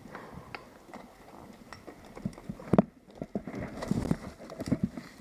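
Irregular knocks and clacks, with one sharp knock near the middle and a busier run of them in the second half.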